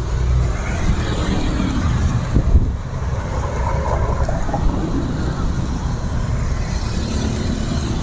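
Road traffic passing, mostly motorbikes and cars: a steady low rumble, with a single knock about two and a half seconds in.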